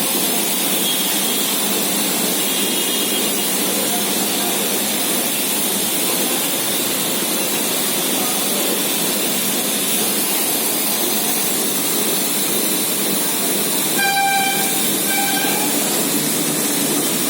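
Crompton Greaves 10 hp air compressor running, a loud, steady, hissing noise with no clear beat. Two short pitched tones sound briefly about 14 and 15 seconds in.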